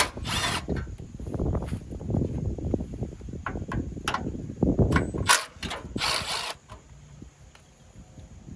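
Tools working on fasteners while car body panels are removed: fast, irregular ratcheting and rattling with sharp clicks and two short hissing bursts. It stops about six and a half seconds in, leaving only quieter scattered noises.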